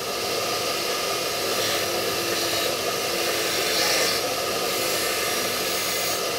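Bench grinder running with a rusty steel part held against its stone wheel, giving a steady grinding hiss. The hiss turns briefly brighter about four seconds in.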